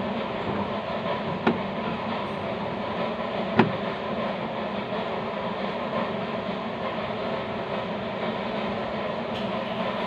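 Steady rumbling noise, with two sharp clicks of a screwdriver working the screw of a car's interior door handle, about one and a half and three and a half seconds in.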